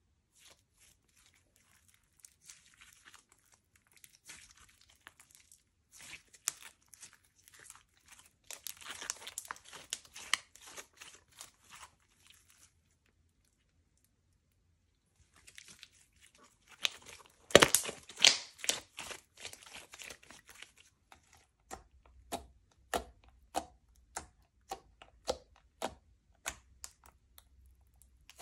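Slime being kneaded and stretched by hand, giving sticky crackles and clicking pops. It stops for a couple of seconds midway, comes back loudest just after the pause, then settles into evenly spaced pops about one or two a second near the end.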